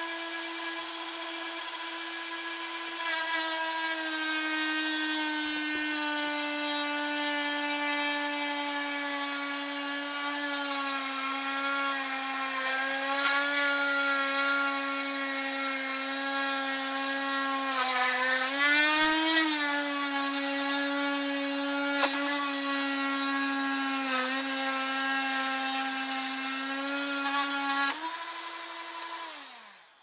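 Dremel Trio rotary tool cutting through a wooden board, its motor giving a steady high whine. The pitch sags slightly as the bit bites into the wood, jumps briefly with a sharp knock about two-thirds of the way through, and climbs back once the load comes off near the end. Then it winds down as the tool is switched off.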